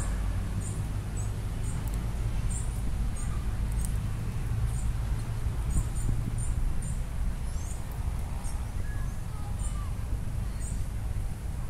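Outdoor ambience: a steady low rumble with a small bird's short, high chirps repeating about once a second.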